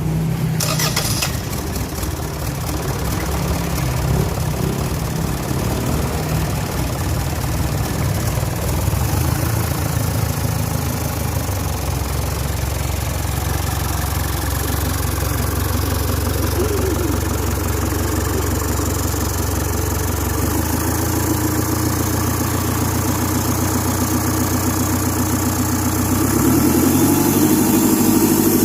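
Kia Carnival 2.5-litre turbo-intercooled diesel engine idling steadily. Its note shifts about twenty seconds in and rises a little near the end.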